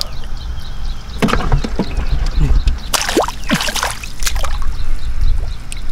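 Shallow water sloshing and splashing as it is disturbed, with several sharper splashes about one, three and four seconds in, over a steady low rumble.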